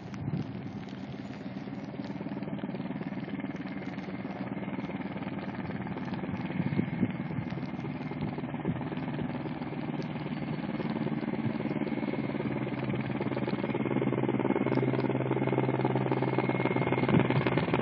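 Mil Mi-8 helicopters in flight, with a steady engine and rotor sound and a thin high whine that grows gradually louder as they approach.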